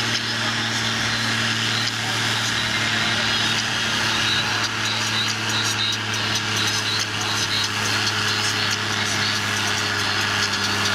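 Case IH 1455 XL tractor's six-cylinder diesel running at steady revs under load, pulling a tractor-pulling sled; the engine note holds one constant pitch throughout.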